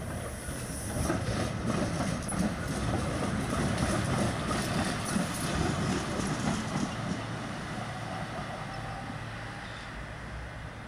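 Two-section Stuttgart tram passing on its track: its running noise builds about a second in, is loudest for several seconds as it goes by, then fades as it draws away.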